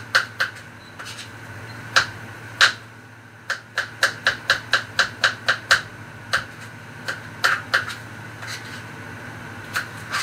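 Knife chopping on a cutting board: sharp, irregular knocks, with a quicker run of about three a second in the middle.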